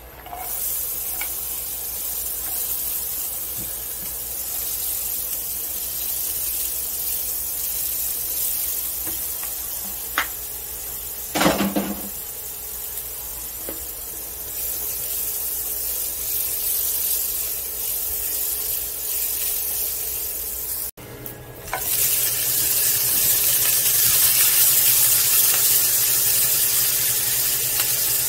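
Sliced carrots and onion sizzling as they stir-fry in a hot nonstick frying pan, moved about with a silicone spatula, with a few brief knocks around ten to twelve seconds in. After a short break about three-quarters through, the sizzling is louder.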